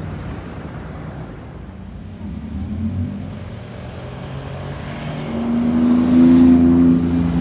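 Porsche 911 GT2 RS's twin-turbo flat-six accelerating hard past close by, its engine note rising to a loud peak about six seconds in, over a background of city street traffic.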